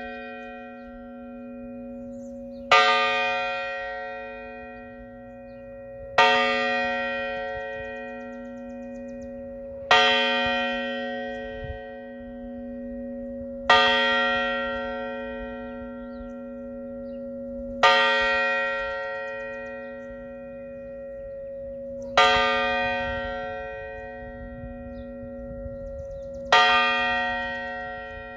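A single church bell tolling slowly, struck seven times at about four-second intervals. Each stroke rings out and fades, and a low tone hangs on between strokes.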